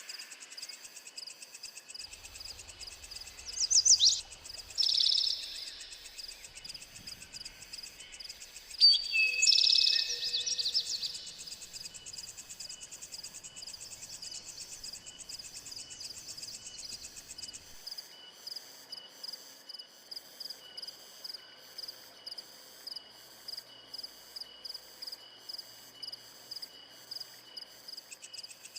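A steady insect chorus of crickets and cicadas, shrill and fast-pulsing, runs throughout. A wild bird breaks in with short, loud calls about four and five seconds in, then again for a couple of seconds around nine to eleven seconds.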